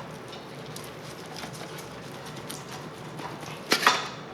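Faint steady background, then near the end two sharp clacks close together, from a cutting utensil knocking against a board or pan as the ribs are about to be cut.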